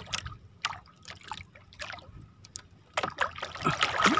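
Wooden paddle strokes splashing in the sea beside a small outrigger canoe, growing denser from about three seconds in. Before that come a few scattered short splashes and knocks.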